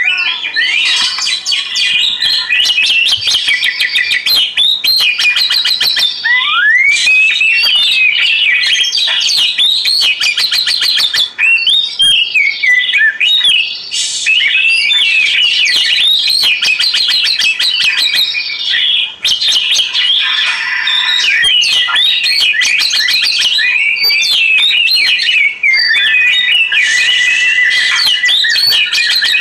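Oriental magpie-robin (kacer) singing a long, varied song of rapid whistled phrases that rise and fall, mixed with sharp clicking notes, with hardly a pause.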